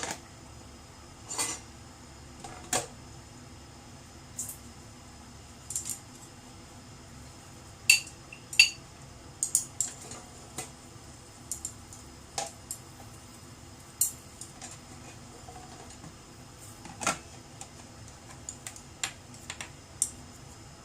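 Kitchen utensils clinking and knocking against pots and dishes in scattered, irregular sharp clinks, the loudest pair about eight seconds in, over a steady faint hum.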